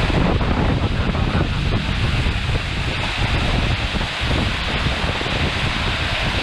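Storm wind blowing hard in gusts, loud and buffeting the microphone with a dense rushing roar.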